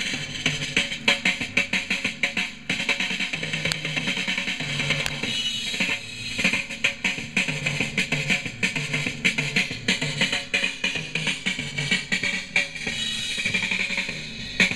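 A song with a drum kit playing from a 7-inch Decca single on an HMV 2011 record player, with a steady beat.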